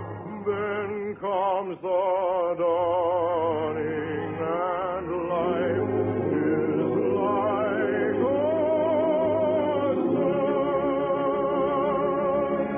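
Orchestral operetta music from an early-1950s radio broadcast: a wavering vibrato melody over held accompanying chords, continuous throughout. It sounds narrow and dull, with no high end, as in an old broadcast recording.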